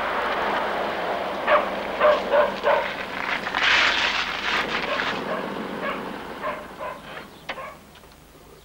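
A car's tyres crunch on a gravel drive as it rolls up and stops, the crunch loudest about four seconds in before it fades. About a second and a half in, four short animal calls sound in quick succession.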